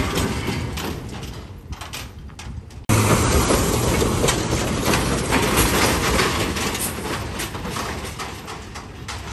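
Heavy diesel goods trucks grinding slowly through deep mud ruts, engines running under load with many knocks and clanks from their loaded bodies. The first truck fades as it moves off; an abrupt jump about three seconds in brings a closer, louder truck passing by the wheels, which then fades as it pulls away.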